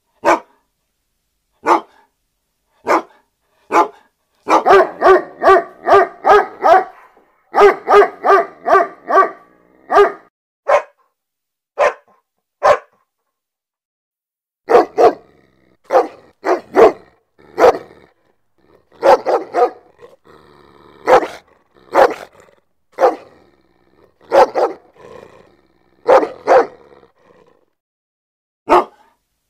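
A dog barking repeatedly in short, sharp barks, with two quick runs of rapid barks a few seconds in and a brief pause near the middle.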